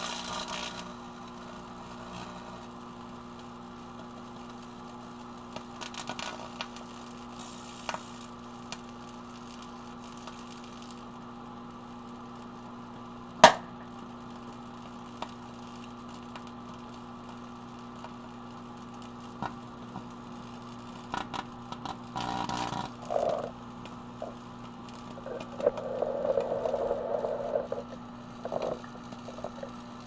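Microwave oven running with a steady hum while an LCD screen panel, its backlight and light bulbs inside arc and burn. Scattered clicks and one loud sharp crack come about a third of the way in. Buzzing bursts of arcing follow in the last third.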